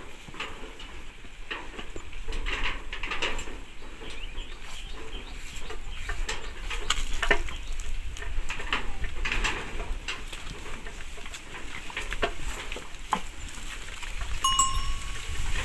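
Chickens clucking in short, scattered calls, with one longer high call near the end, over a low rumble of wind.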